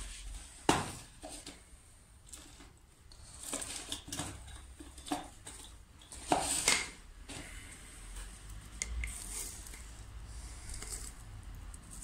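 Scissors and small gardening tools being handled, giving scattered sharp clicks and clinks, the loudest about a second in and again about six seconds in, as slow-release fertiliser is got ready for the pot.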